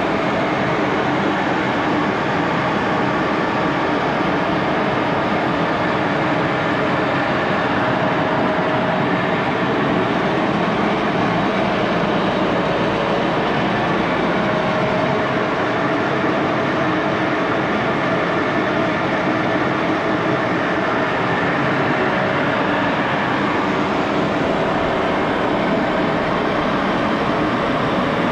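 1941 Axelson 14x30 gearhead engine lathe running steadily under power while turning a long steel bar, its headstock gearing giving a constant mechanical whir.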